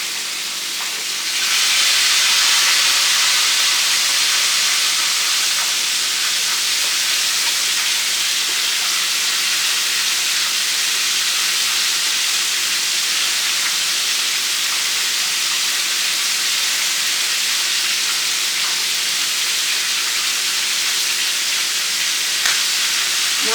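Breaded chicken pieces frying in hot oil: a steady sizzle that grows louder about a second in.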